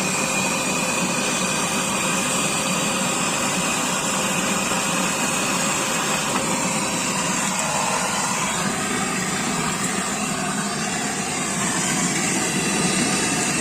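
Brazing torch flame burning steadily with a constant rushing roar, heating copper refrigerant tubing to desolder it from the compressor.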